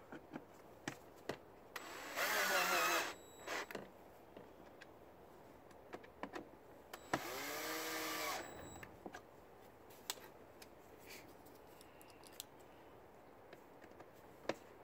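Cordless electric screwdriver driving in the screws of an air filter housing cover, in two short bursts about 2 and 7 seconds in, the motor's pitch rising and falling with each run. Light plastic clicks and knocks come from handling the housing between the runs.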